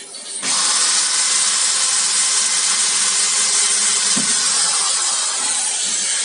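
Corded electric hand drill running under load, its small bit grinding into stainless steel to bore a pilot hole, with the bit greased to keep it cool. The drilling starts about half a second in, holds steady, and eases off at the very end.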